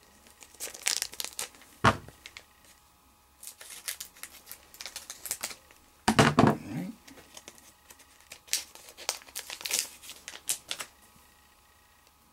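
Foil trading-card booster pack wrapper crinkling and tearing as it is opened, in several bursts of rustling, with a sharp knock about two seconds in and a louder thump and rustle about six seconds in.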